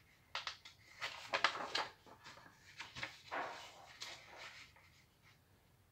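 A sheet of A4 printer paper rustling and scraping on a wooden tabletop as hands fold and crease it, in a run of short bursts that is loudest a second or two in and fades out near the end.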